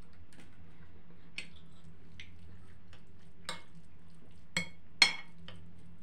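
Metal spoon clinking against a plate in a handful of separate strikes while seasoning is stirred into cooked buckwheat, the loudest clink about five seconds in. A faint steady low hum runs underneath.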